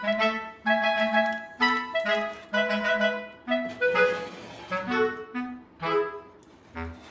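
Background music: a clarinet-like woodwind melody of short separate notes.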